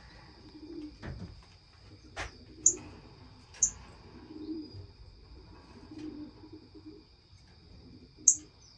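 Caged birds in a bird room calling: soft low calls repeat every second or so, with a few short, sharp high chirps, the loudest near the end.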